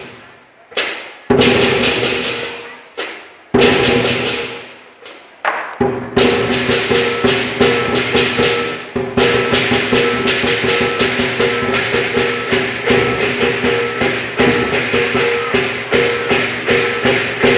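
Chinese lion dance percussion: a large barrel drum with clashing hand cymbals. A few single crashes left to ring out, then from about six seconds in a fast, steady beat.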